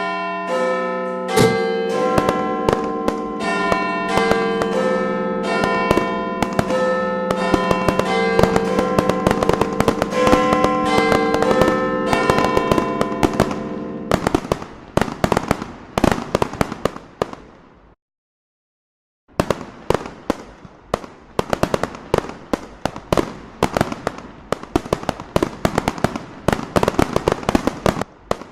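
Bells ringing a changing sequence of notes over the crackle and bangs of fireworks. The bells die away about halfway, leaving the fireworks alone. The fireworks stop briefly about two-thirds through, then resume with dense crackling and popping.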